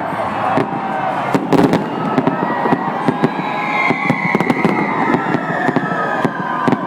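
Fireworks display going off: many quick, irregular bangs and crackles overlapping one another.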